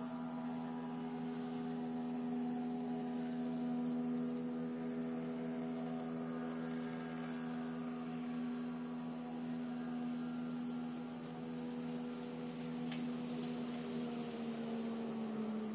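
A steady low hum made of several held tones, dipping slightly in pitch near the end.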